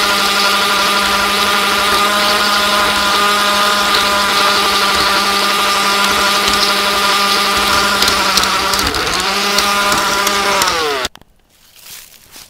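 Garden-scale model train's motor and gearing whining steadily as it runs, heard from a camera riding on the train. About nine seconds in the pitch sags as the motor slows, and it cuts off abruptly a couple of seconds later.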